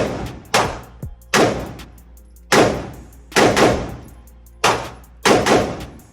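A string of about nine semi-automatic rifle shots from an AR-15, fired at an uneven pace, each crack followed by a long echoing tail.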